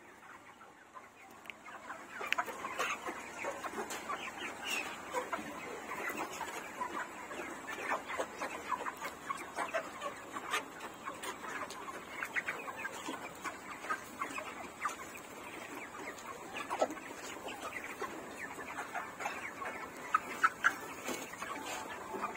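A flock of chickens clucking, with many short calls overlapping without a break. The sound fades in over the first two seconds.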